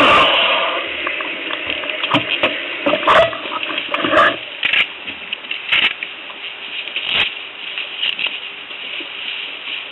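Motorcycle engine running, then switched off right at the start. After that come scattered clicks and knocks, a few sharper ones in the middle, over quiet outdoor background.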